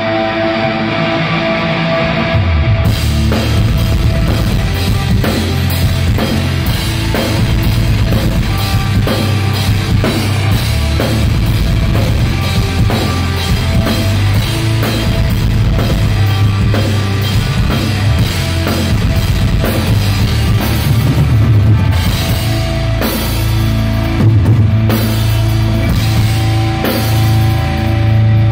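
Heavy metal band playing loud at a sound check, drum kit and bass to the fore; the full band comes in about three seconds in.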